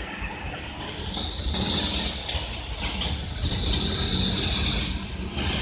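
Road vehicles' engines running and moving off, with a steady rumble and a hiss that swells from about a second in.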